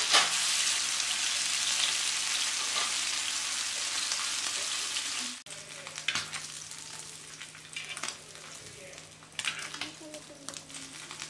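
Mathi sardines shallow-frying in hot oil in an iron pan, a loud steady sizzle. About five seconds in, the sizzle cuts off abruptly to a much quieter stretch of scattered crackles over a faint steady hum.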